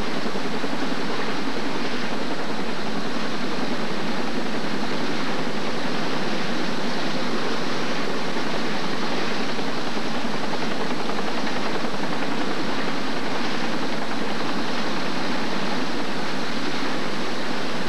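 A helicopter hovering low overhead, its rotor and engine noise mixed with rushing floodwater, making one steady, even noise that does not change.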